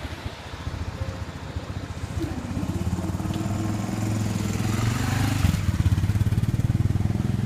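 Class 153 diesel railcar's underfloor engine working hard, growing louder as the unit accelerates over the crossing; its pitch rises steadily, then drops suddenly about five and a half seconds in.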